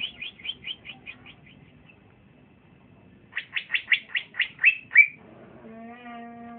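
Young male cucak ijo (green leafbird) singing: a quick run of sweeping chirps, then after a pause of about two seconds a louder run of about eight chirps ending in a downward slurred note. A steady low hum comes in about a second before the end.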